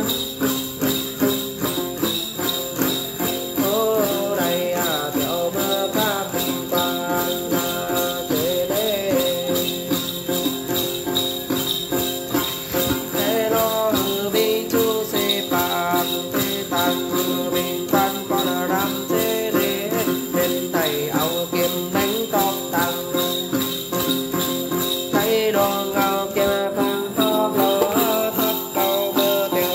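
Then ritual music: a male Then singer chanting a melodic line in Tày while a đàn tính gourd lute is plucked and a cluster of small jingle bells (chùm xóc nhạc) is shaken in a steady quick rhythm. The voice comes in about four seconds in, over the continuous bells and strings.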